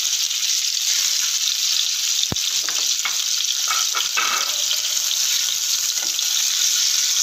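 Hard-boiled eggs sizzling steadily as they shallow-fry in a little hot refined oil in a nonstick frying pan. A sharp click a little over two seconds in is followed by a few light knocks over the next two seconds.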